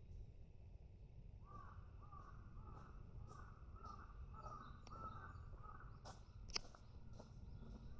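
A bird calling over and over in faint, short calls, two to three a second, starting about a second and a half in. A single sharp click a little past the middle is the loudest moment.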